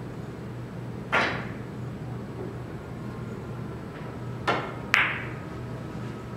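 Sharp billiard-ball clicks on a carom table, over a steady low hum. One click comes about a second in. Later a cue tip strikes the cue ball, and about half a second after that a louder, ringing click follows as the moving ball makes contact.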